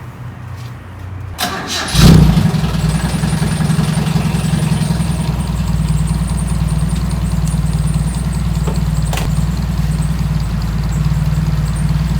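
Toyota KP30 Starlet's 4K four-cylinder engine cranking briefly and catching about two seconds in, then settling into a steady idle on a cold start, through a newly fitted exhaust.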